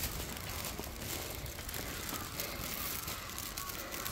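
Footsteps of someone walking, with light crackling clicks over a steady outdoor background hiss.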